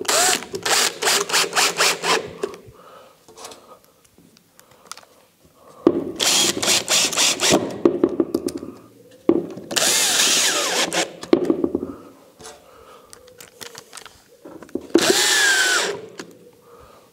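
Makita cordless drill-driver driving screws into wood in four short runs of one to two seconds each. The first run pulses rapidly, and the last rises in pitch as the motor speeds up.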